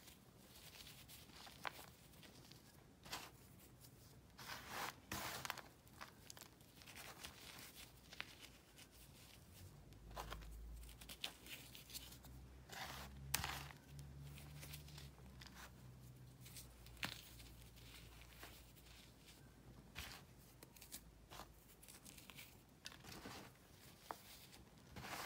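Faint crunching and crackling as crumbly chunks of hardened powder are squeezed and broken up by hand. Grains and small pieces patter back onto the heap in an uneven string of soft crackles.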